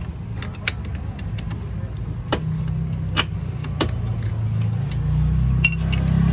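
Steady low hum of an engine running, growing louder about five seconds in, with scattered metallic clicks from a hand wrench turning the adjuster nut on a steering rack.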